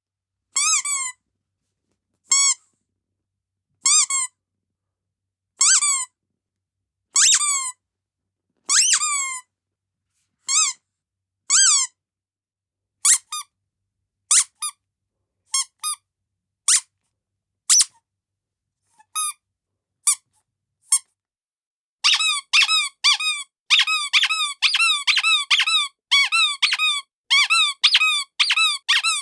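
Squeaky dog toy being squeezed, each squeeze a short, high-pitched squeak with a quick pitch bend. At first it squeaks once every second or two, then in quicker pairs, and from about two-thirds of the way in in a fast run of squeaks.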